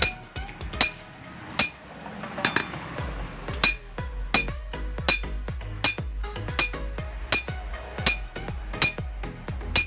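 Blacksmith's hammer repeatedly striking a steel machete blank on an anvil, sharp ringing metal blows about two to three a second. About two seconds in, the blows pause briefly under a short hissing noise, then resume at a steady pace.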